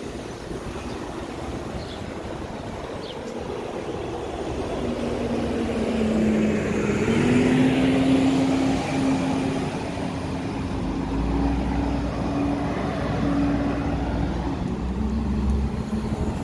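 Street traffic with a bus engine coming up close: a steady engine hum appears about four seconds in, steps up in pitch, and grows into a heavy low rumble as the bus nears, dipping in pitch near the end. Gusty wind rumble on the microphone runs underneath.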